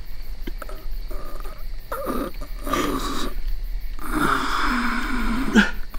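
A man crying hard: short broken sobs, then two long wailing sobs about two and four seconds in, the second ending in a sharp, loud catch of breath near the end.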